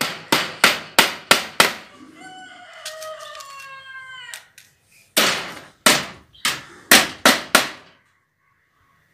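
Claw hammer driving small 3/4-inch nails through welded wire mesh into a wooden frame: a run of about six sharp strikes, then another run of about six after a pause. In the pause, about two seconds in, a rooster crows once.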